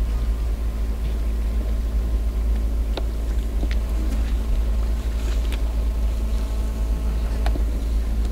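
A vehicle engine idling, a steady low hum, with a few faint clicks over it.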